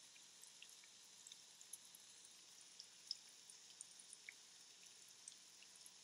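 Near silence: a faint steady hiss with scattered faint clicks and ticks, one a little louder about three seconds in.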